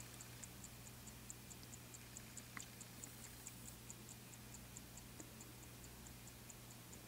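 The electromechanical movement of a 1972 Corvette dash clock ticking faintly and evenly, roughly five ticks a second: the clock running on bench power after its solenoid coil was rewound.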